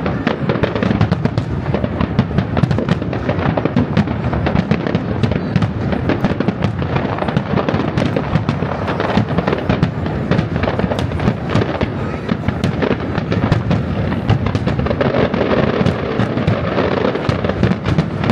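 Professional fireworks display: a dense, unbroken barrage of shell bursts and crackling bangs in quick succession.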